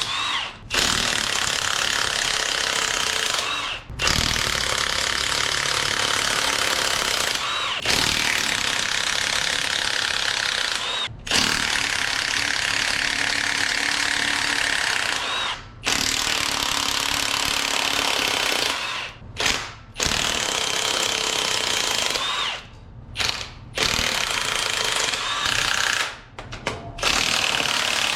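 Cordless power tool, impact-wrench type, running in long bursts of several seconds with short pauses between them, each burst opening with a brief rising whine, as bolts are run out during a 5.3 V8 teardown.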